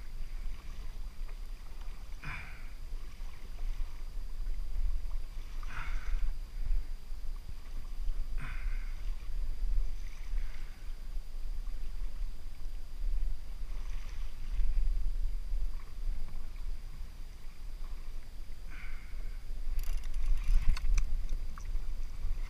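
Choppy sea water slapping and splashing against a plastic kayak's hull every few seconds, over a steady low rumble of wind on the microphone. A few sharp clicks near the end.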